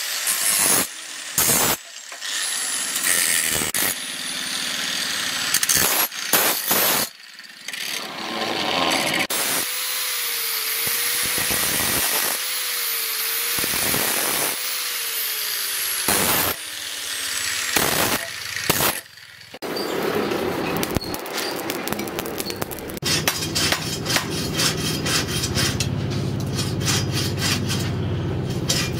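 Electric angle grinder grinding a steel knife blade, its motor whine rising and falling and the grinding cut off and resumed many times. For the last several seconds it gives way to a steady low hum with rapid crackling from a charcoal forge.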